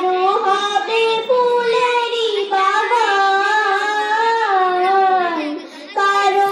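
A young girl singing a Bengali Islamic song (gojol) solo, with no accompaniment: long held, wavering notes, with a brief break for breath near the end.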